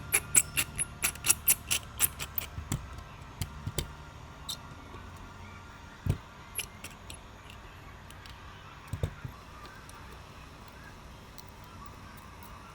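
Quick, sharp clicks of small hard objects, about three a second, that thin out after a few seconds, then a few single light knocks; small repair tools tapping and clicking against the phone.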